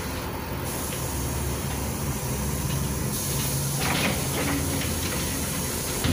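Cabin sound of a LiAZ 5292.67 city bus standing with its YaMZ-53624 natural-gas engine idling: a steady low hum under a constant hiss, with a few light rattles about four seconds in.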